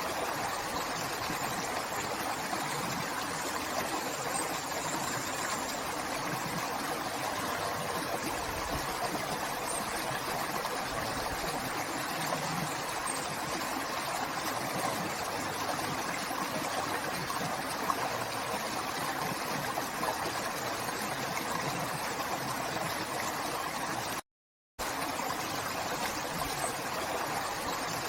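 River water flowing in a steady rush. The sound cuts out completely for about half a second near the end.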